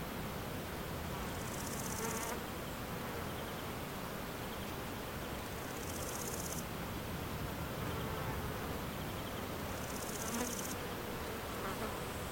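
An insect sounding in short, high-pitched buzzing bursts, three of them about four seconds apart, each lasting under a second, over a steady background hiss.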